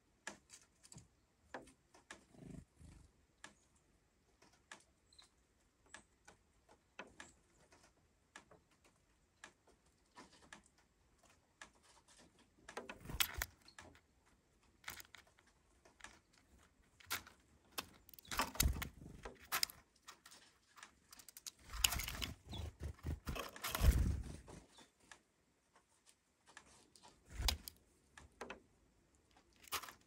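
Varied tits feeding at a bowl of sunflower seeds close to the microphone: scattered light clicks and taps of seeds being picked over and pecked, with louder clusters of scuffling and seed rattle several times as a bird shifts about in the bowl.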